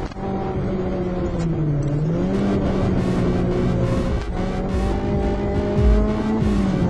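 Ford Escort RS 2000 Mk5's four-cylinder engine heard from inside the cabin, holding a steady high-revving note with a brief drop and recovery in pitch about a second and a half in. Music with a steady beat plays underneath.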